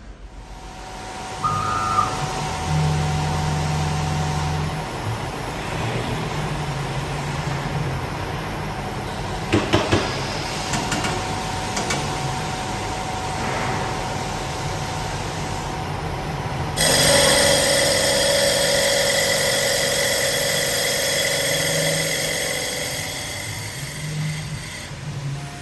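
CNC wood lathe running and cutting a wooden workpiece, a steady machine noise with a few sharp knocks around ten seconds in. About seventeen seconds in a louder, high-pitched ringing cut starts and runs for several seconds before easing off.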